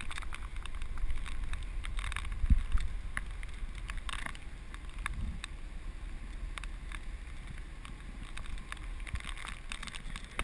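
Hurricane-force wind buffeting the microphone in a steady low rumble, with scattered sharp ticks throughout and one louder thump about two and a half seconds in.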